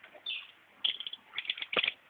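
Green-headed tanager giving short, sharp high chips, a few at first and then a quick run of them in the second half.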